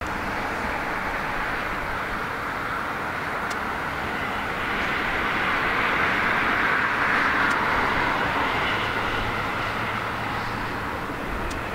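Boeing 777-300ER on final approach, its GE90-115B jet engines heard as a steady hiss and rumble that grows a little louder around the middle and eases off toward the end.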